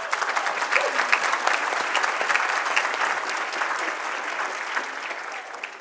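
Audience applauding, a dense patter of many hands clapping that starts abruptly and dies away near the end.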